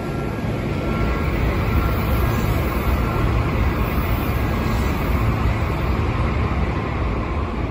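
Sotetsu electric train starting to pull out of the station, its motors and wheels making a steady, loud rumble with a low hum as it slowly moves off.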